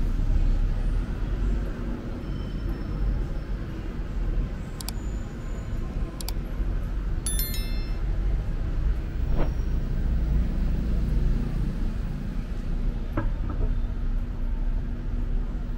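Urban street ambience: a steady low rumble of distant city traffic, with a few brief high metallic clinks or chimes about five to eight seconds in.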